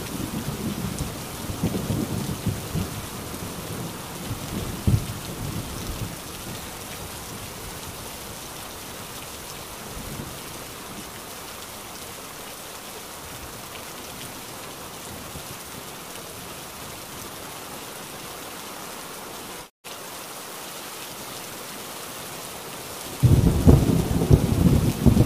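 Steady heavy rain with thunder. A low rumble dies away over the first few seconds, the rain carries on alone with a split-second break about two-thirds of the way through, and a new loud thunder rumble breaks in near the end.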